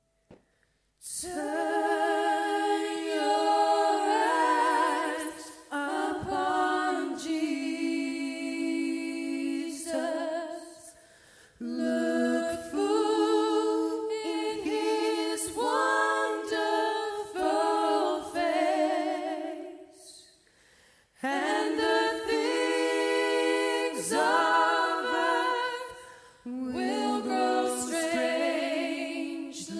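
Unaccompanied (a cappella) singing, starting about a second in: long held notes with vibrato, sung in phrases with short breaks between them.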